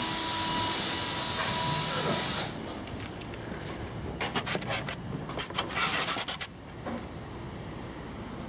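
Wooden shipping crate being unpacked: wood and polystyrene foam packing scraping and rubbing. A steady scrape runs for about the first two seconds, and a quick run of sharp scrapes follows from about four to six and a half seconds in.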